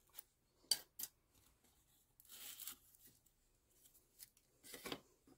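Faint handling of lace and ribbon on a cardboard bow template: a few sharp clicks early on and later, and two short rustles, as the lace is worked free of the template.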